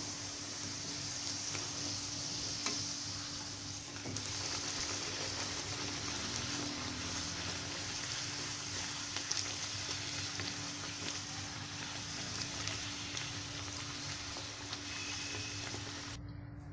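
A bhatura deep-frying in hot oil in a kadai: a steady sizzle, with a few light ticks of the slotted spoon against the pan as it is pressed and turned. The sizzle stops abruptly near the end.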